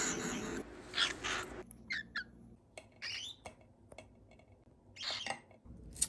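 A pet cockatiel giving a handful of short, separate calls and chirps, two of them in quick succession.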